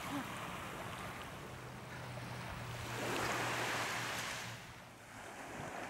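Small waves washing onto a beach, one swelling up and washing in about three seconds in.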